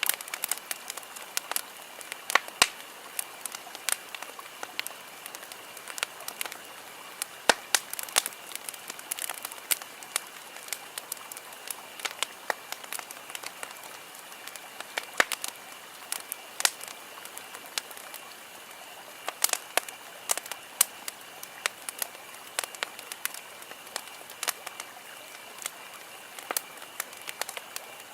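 Wood campfire crackling: a steady stream of sharp, irregular pops and snaps over a soft hiss of burning.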